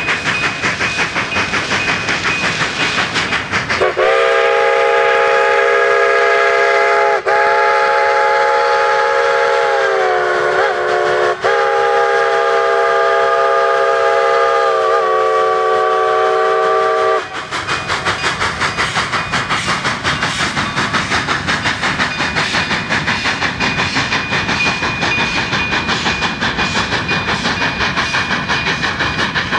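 Steam locomotive No. 487, a narrow-gauge 2-8-2, blowing its chime whistle: one long chord of several notes lasting about thirteen seconds, dipping briefly twice. After the whistle stops, the locomotive's exhaust chuffs in a quick, regular beat as it pulls out.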